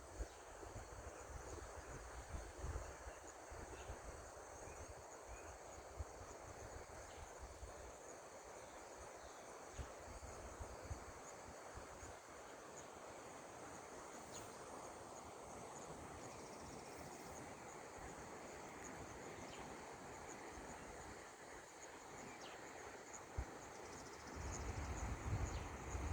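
Faint outdoor ambience with insects chirring steadily at a high pitch, and wind rumbling on the microphone near the end.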